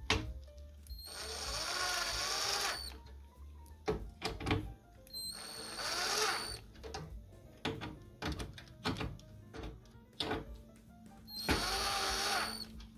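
Ryobi cordless drill turning screws in a desktop PC case in three short runs, each lasting one to two seconds. Its motor whine rises and falls in pitch within each run, with small clicks and handling knocks between the runs.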